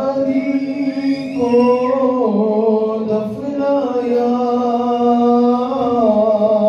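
A solo male voice reciting an Urdu noha, a Shia lament, unaccompanied into a microphone. He sings long held notes that step up and down in pitch, with a slight waver.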